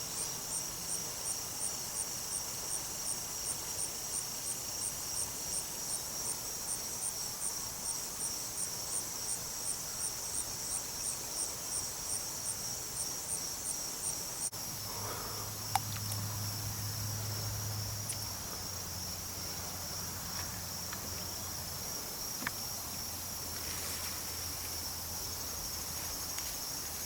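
Crickets and other insects calling: a steady high trill throughout, with a second insect chirping in even pulses a little over twice a second that stops about halfway through. A faint low hum and a few soft clicks follow in the second half.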